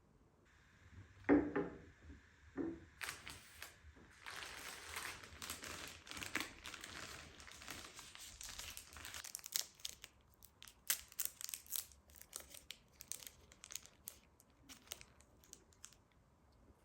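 Plastic snack wrapper being crinkled and torn open, a dense rustle followed by scattered sharp crackles, after a single knock about a second in.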